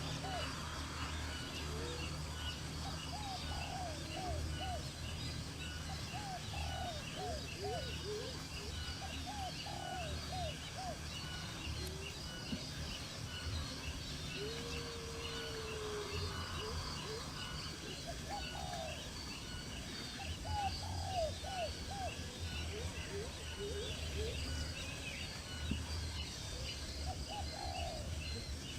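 Birds calling: repeated groups of three to five short, low, curved notes every few seconds, with higher chirping throughout, over a low steady background rumble.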